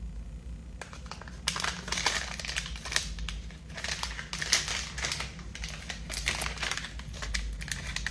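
Irregular crinkling and rustling of something being handled in the hands close to the phone's microphone, starting about a second and a half in.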